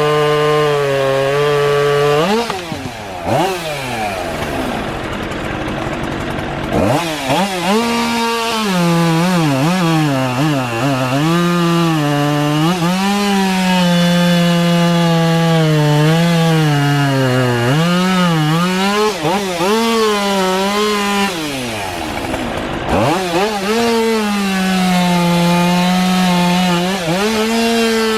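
Chainsaw cutting through a storm-downed tree, its pitch sagging and recovering as the chain bites into the wood. It twice drops toward idle and revs back up, once a few seconds in and again near the end.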